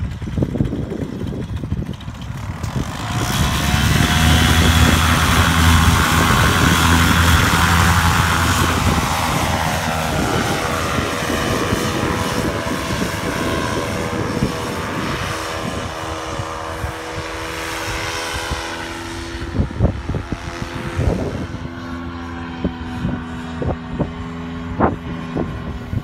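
Paramotor engine and propeller throttling up to full power about three seconds in for takeoff, then running steadily and falling in pitch as the pilot climbs away. Gusts of wind buffet the microphone near the end.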